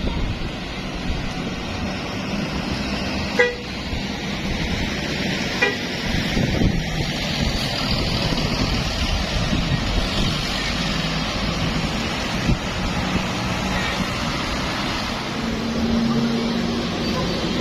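Buses passing on a road, engine and road noise running steadily, with a few short horn toots and a briefly held horn note near the end.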